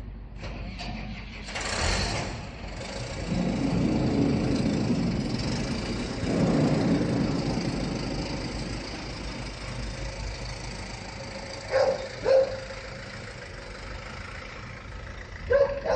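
Farm tractor engine running, swelling louder twice as it revs. Near the end a dog barks twice.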